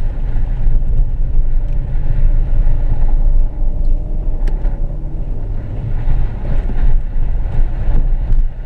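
Vehicle driving over snow and mud, heard from inside the cabin: a steady low engine and tyre rumble, with a few small knocks and clicks.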